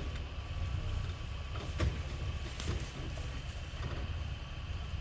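Vehicle engine running steadily at low revs, with a couple of sharp knocks about two seconds in.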